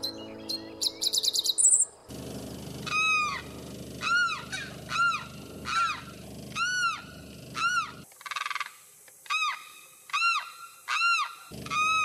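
The last notes of acoustic guitar music with a quick run of high chirps, then a limpkin calling over and over: a loud rising-and-falling cry repeated about once a second.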